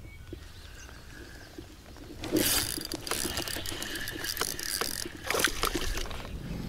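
Spinning reel being cranked hard on a hooked bass, its gears and drag making a rapid clicking clatter that starts about two seconds in.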